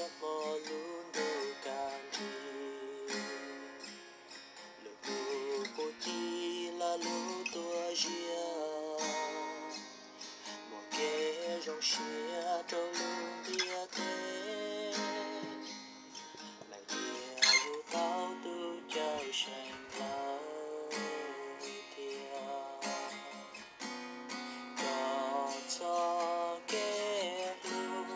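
Acoustic guitar playing a song, strummed chords mixed with picked melody notes, with one sharp, louder strike a little past the middle.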